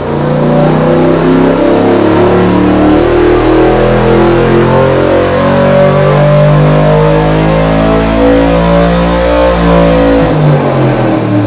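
Ford Cleveland 393 V8 running loud and under load on an engine dyno, on LPG liquid injection only with the petrol inhibited and the throttle limited to protect it. The deepest part of the sound drops away shortly before the end as the pull finishes.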